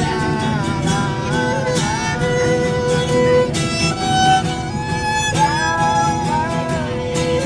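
Violin playing a melody of held notes with slides between them, over a steady rhythmic accompaniment.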